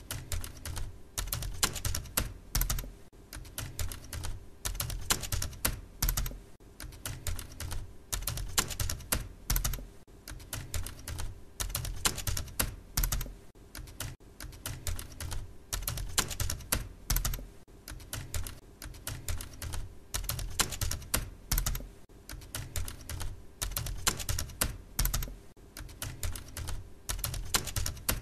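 Typing on a computer keyboard: keys clicking in quick, uneven runs without a break.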